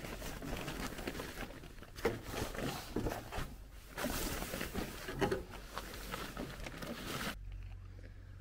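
Fabric rustling and scraping as a cover is pulled and stretched over an inflatable sleeping pad, with irregular handling knocks. It cuts off about seven seconds in, leaving a faint steady low hum.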